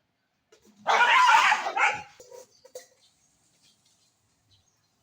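A loud, harsh animal call about a second long, followed by a few faint clicks.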